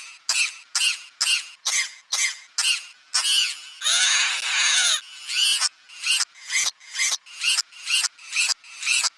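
A cough, pitched up and stuttered by an edit effect into short bursts repeating about two to three times a second, with a longer raspy burst about three to five seconds in.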